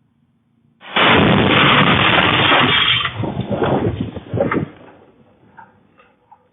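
Bomb exploding at an ATM: a sudden, very loud, distorted blast about a second in that holds for about two seconds, then breaks into several sharp cracks and rattles of debris that die away.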